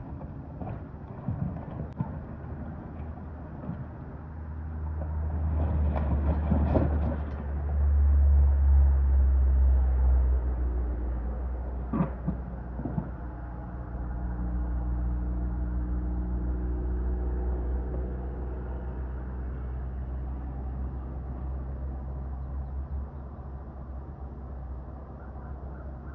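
Mini excavator's diesel engine running under load, working harder from about five seconds in and easing back after about ten seconds, with a few sharp knocks and cracks from the shed being torn down.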